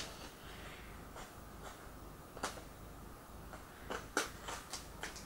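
Packaging and small items being handled by hand: a scatter of brief crinkles and taps, with several close together near the end.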